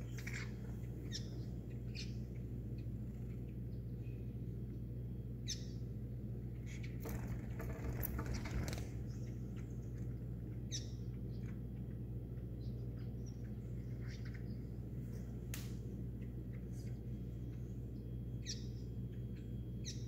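Small songbird giving short, high chirps, one every few seconds, over a steady low hum. A brief noisy rustle, the loudest sound, comes about seven seconds in.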